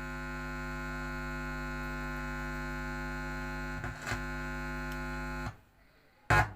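Steady mains hum from the speakers of a stereo audio amplifier board, switched on for testing. The hum cuts off suddenly about five and a half seconds in, followed by a sharp click.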